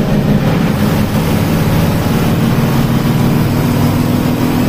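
Diesel engine of an intercity coach bus running at speed, heard from inside the cabin over steady road noise. Its note steps up slightly about halfway through.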